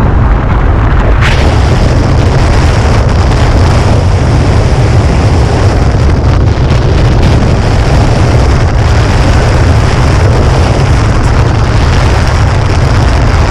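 Wind blasting over the camera microphone during a tandem skydive freefall: a loud, steady roar with a heavy rumble, turning brighter about a second in.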